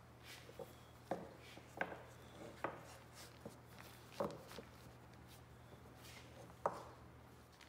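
Wooden blocks being set down on a plywood board: a handful of sharp, irregularly spaced knocks, the loudest near the end, over a faint steady hum.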